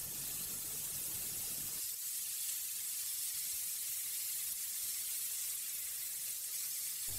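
Marinated lamb chops sizzling steadily on a very hot ridged grill pan, a soft continuous hiss. A low hum underneath stops about two seconds in.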